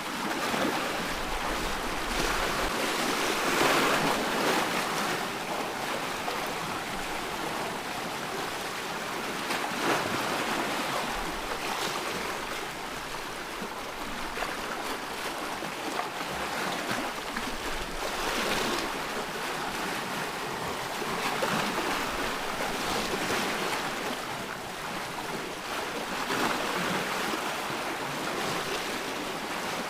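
Ocean surf: a continuous wash of breaking waves that swells louder every few seconds as waves break and recede.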